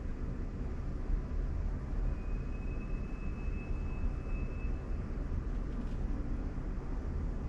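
Steady low road and tyre rumble heard inside the cabin of a moving Waymo electric car. A faint, thin, high steady tone sounds for about two and a half seconds in the middle.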